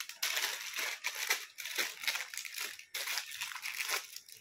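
Thin clear plastic packaging crinkling as it is handled around a belt buckle, with a brief pause about three seconds in.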